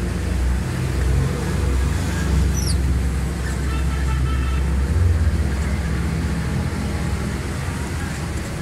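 Steady low rumble of motor-vehicle traffic.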